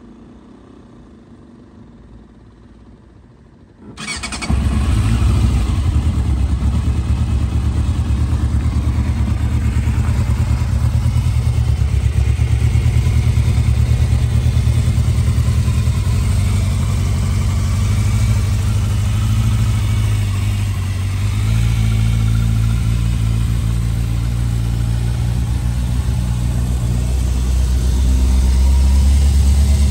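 A 1998 Yamaha YZF600R Thundercat's carburetted, liquid-cooled four-stroke inline-four starts up about four seconds in, then runs steadily. It gets a little louder near the end.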